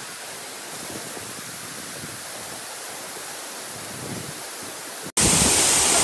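Waterfall rushing steadily. About five seconds in the sound cuts out for an instant and comes back much louder.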